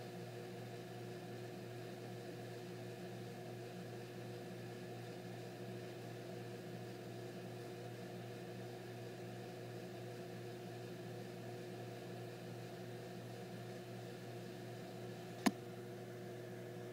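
Steady machine hum holding several constant tones over a light hiss, with a single sharp click about fifteen seconds in.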